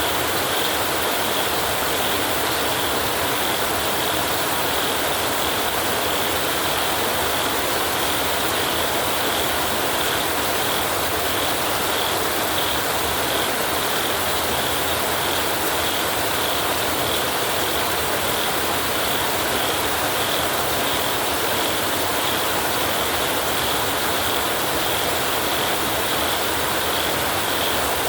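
Heavy rain falling steadily on a tin roof, a dense even patter with no thunder.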